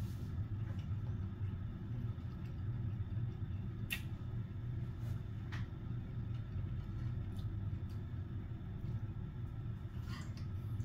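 A steady low background hum with a single faint sharp click about four seconds in.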